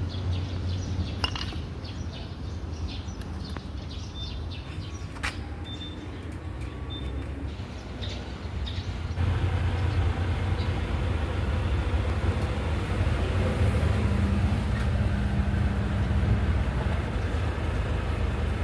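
Vehicle cruising, with a steady low rumble that grows louder about nine seconds in and scattered light knocks in the first few seconds. It is recorded to catch a vibration and knocking from under the seat when cruising.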